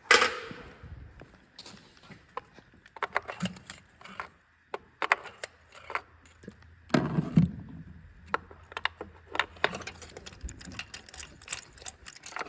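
Hand tools and spark-plug parts clinking and tapping while working in an engine bay, in irregular clicks. There is a louder rustle at the start and another about seven seconds in.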